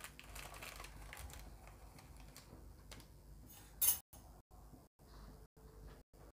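Small clicks and clinks of kitchen utensils and cookware at a gas stove, with one sharp, loud clink about four seconds in. After it the sound cuts out to total silence several times for a moment.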